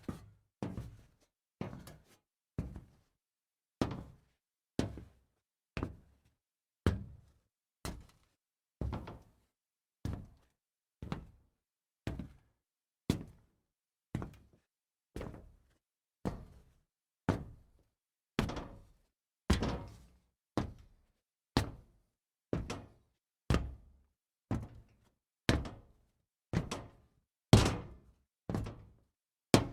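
Scrap metal being kicked over and over: a sharp hit with a short fading tail roughly once a second, some hits harder than others, the hardest near the end.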